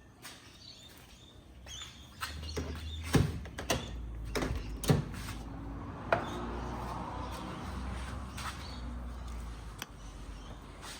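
Carburetted car engine turning over on the starter after a squirt of fuel down the carburettor: its first start attempt on the newly plumbed fuel system. A low steady rumble starts about two seconds in, with a few sharp knocks, and stops shortly before the end.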